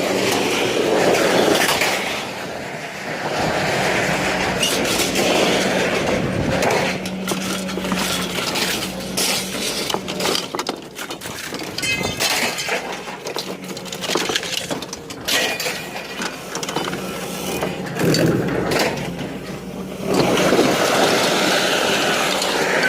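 Scrap metal clanking and clattering as pieces are thrown and dropped during unloading, with many sharp knocks over a steady low hum.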